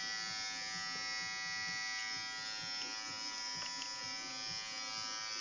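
Electric hair clippers running with a steady buzz, switched off near the end.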